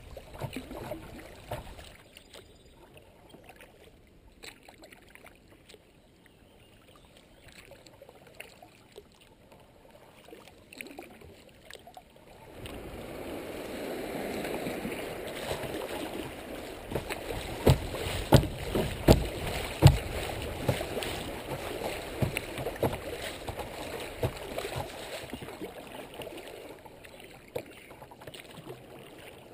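Kayak running a choppy riffle on a muddy creek: quiet lapping at first, then from about twelve seconds in a louder rush and splash of water against the hull, with a few sharp knocks in the middle. It eases off again near the end as the boat reaches calm water.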